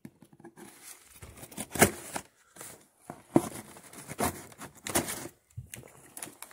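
Toy packaging being handled and opened: rustling and crinkling of cardboard and plastic with irregular sharp tearing sounds, the loudest about two seconds in.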